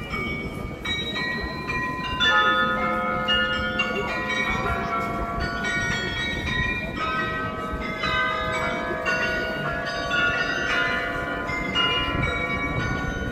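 Tuned bells of the Munich New Town Hall's Glockenspiel playing a tune. Notes are struck one after another at different pitches, each ringing on so that they overlap.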